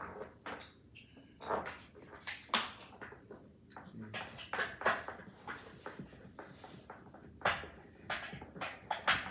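Irregular clicks, knocks and rustles of furniture parts and hardware being handled, with one sharper knock about two and a half seconds in.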